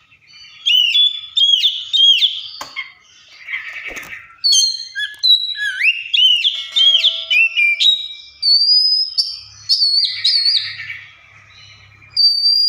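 Oriental magpie-robin singing a loud, varied song of whistled phrases with rising and falling notes, broken twice by harsh, rasping chatter.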